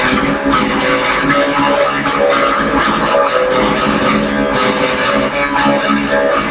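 A guitar strummed in a steady, quick rhythm, about four strokes a second, playing a song's chords.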